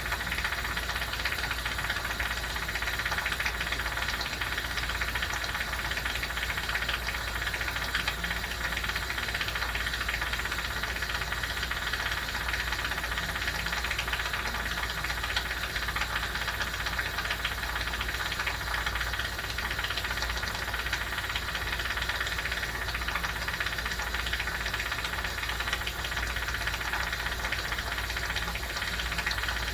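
Steady whirring hum of a running machine with a constant low drone underneath, unchanging throughout.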